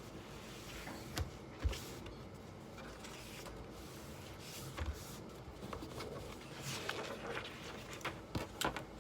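Quiet room tone with scattered soft clicks, taps and rustles of someone studying at a desk, such as pen and paper handling. The sharpest taps come about a second and a half in and in a quick cluster near the end.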